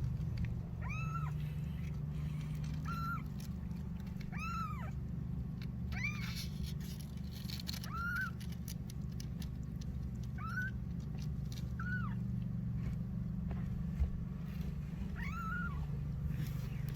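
Kitten meowing repeatedly: about eight short, high meows, each rising and then falling in pitch, a second or two apart.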